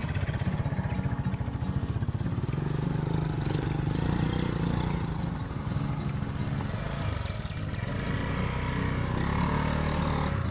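Motorcycle engines running at low revs with a steady low rumble as a Honda scooter is ridden slowly up a wooden slat ramp onto a raft.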